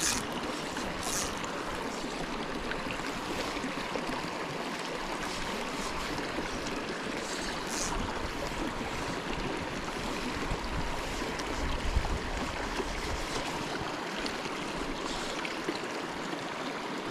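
Small rocky mountain creek running over stones: a steady, even rush of flowing water.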